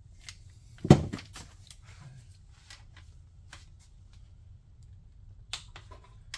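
A wrench being handled on an aluminium engine block and fitted onto a connecting-rod cap bolt: one loud knock about a second in, then scattered sharp clicks of the ratchet and socket working the bolt.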